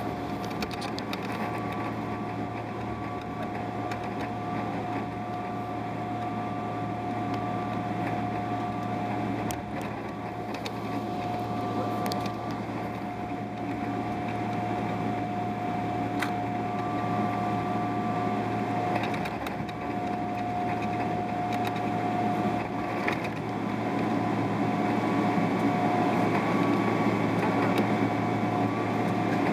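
Cabin noise of a Boeing 777-300ER with its GE90 engines running: a steady low drone with a thin whine over it. It grows somewhat louder over the last few seconds.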